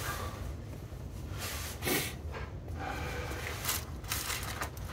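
Faint handling sounds from a soft zippered multimeter carrying case being rummaged for its test leads: one short sharp sound about two seconds in and a few light rustles and clicks near the end, over a low steady hum.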